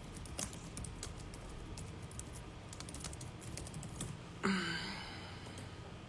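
Typing on a laptop keyboard: a run of quick, irregular key clicks for about four seconds. About four and a half seconds in comes one louder, short rustling sound that fades within a second.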